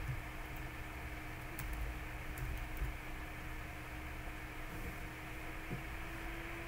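Steady low electrical hum with a faint steady tone, and a few faint keyboard clicks in the first half.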